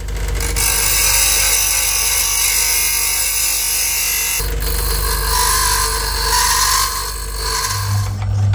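Clarke 8-inch bench grinder running, with a small rod held against its wheel to grind a D bit, giving a steady hiss over the motor hum; the grinding sound changes about halfway. Near the end a steadier, lower machine hum takes over, the lathe running.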